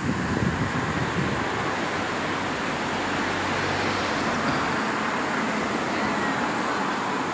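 Steady road traffic noise, with a low engine hum in the first half.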